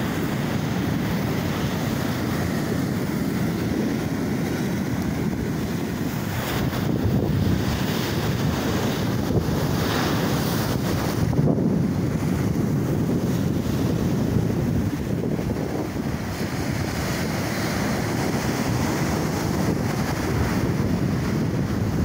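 Wind buffeting the microphone over the steady wash of ocean waves breaking on the shore.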